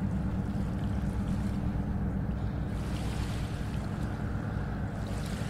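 A steady, low engine drone with an even hum, over wind and water noise.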